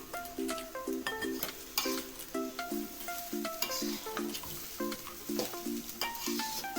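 Food frying and sizzling in a pan while being stirred, with short clicks of the utensil, under background music with a light, repeating plucked melody.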